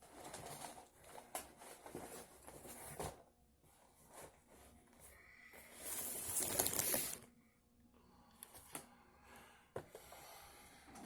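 Packaging and papers being handled: irregular rustling and crinkling with small clicks and knocks, and one longer, louder rustle a little past the middle.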